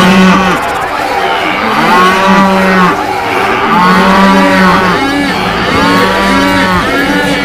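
Cattle mooing again and again, long low moos about every two seconds, overlapped by higher arching calls, over a low rumble that grows stronger in the second half.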